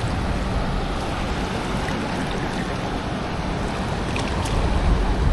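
Ocean surf washing and wind buffeting the microphone, a steady rush with a low rumble that swells near the end.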